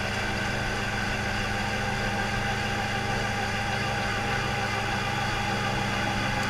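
Gyrocopter engine idling steadily, a low even hum heard from the open cockpit.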